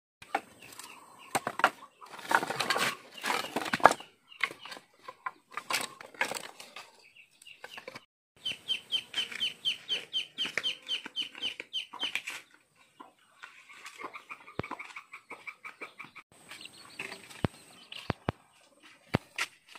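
Dry firewood sticks clattering and knocking together as they are gathered into a bundle, followed by chickens clucking in quick runs of short notes, about four to five a second, with a few more stick knocks near the end.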